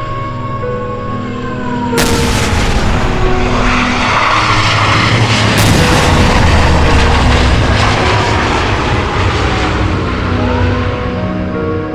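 Air-raid siren wailing, its pitch falling away over the first seconds. A loud, noisy rumble starts suddenly about two seconds in, with a second sudden burst midway. The siren rises again near the end, over soft background music.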